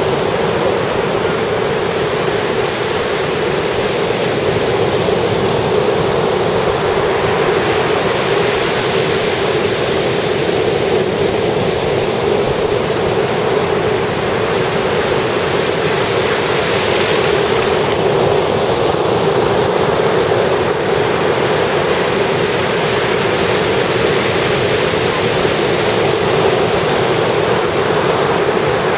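Ocean surf washing onto a sandy beach: a continuous rush of breaking waves, swelling slightly louder about halfway through.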